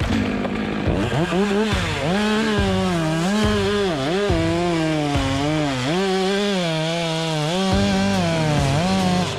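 Two-stroke chainsaw running at high revs, its pitch dipping and recovering again and again as the chain bogs down in the cut.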